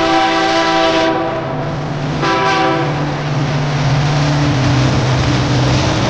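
A loud horn sounding several notes at once, held and then cut off about a second in, followed by one short blast about two seconds in. After it a steady low engine hum runs on.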